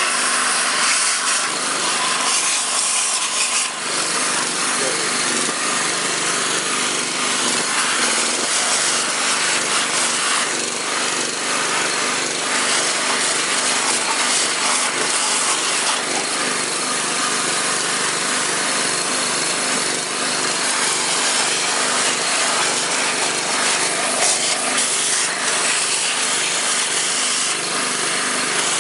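Vacuum cleaner running steadily as its nozzle is worked over the piston tops in an engine block's cylinder bores, sucking up carbon and dirt.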